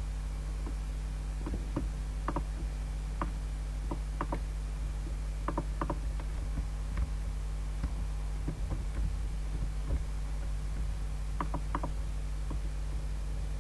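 Scattered clicks and taps of a computer mouse and keyboard, some in quick pairs, over a steady electrical hum and hiss.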